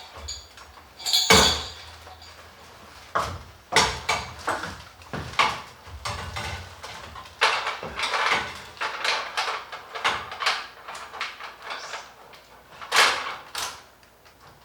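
Irregular metallic clinks, knocks and scraping from handling hardware while mounting a ceiling light fixture, with a loud clank about a second in and another near the end.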